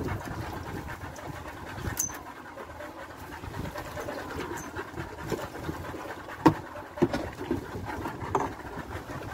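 Uneven rumbling noise of wind and water on an open fishing boat at sea, with a few sharp knocks; the loudest knock comes about six and a half seconds in.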